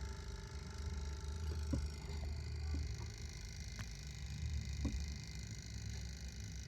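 Small computer cooling fans running steadily, a low hum with a faint whine, with a few faint clicks scattered through.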